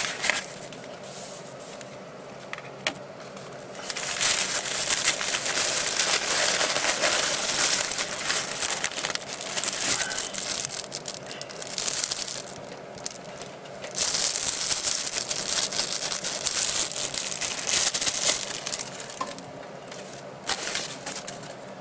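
Knife packaging being unwrapped and torn open by hand, crinkling and crackling in two long stretches with a short break between, plus a few sharp clicks.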